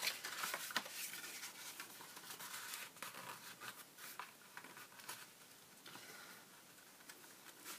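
Faint rustling and scraping of card stock being handled and folded, with a few small clicks, busiest in the first few seconds.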